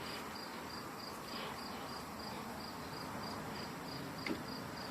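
Insects chirping in a steady rhythm, about three evenly spaced high chirps a second, over faint background hiss, with one small click about four seconds in.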